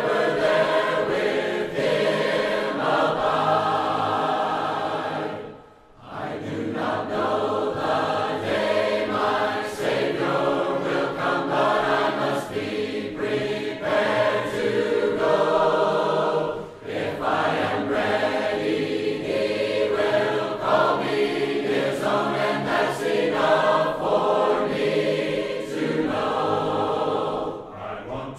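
A choir singing a hymn unaccompanied, several voices in harmony. It pauses briefly between phrases about six seconds in, at about seventeen seconds and near the end.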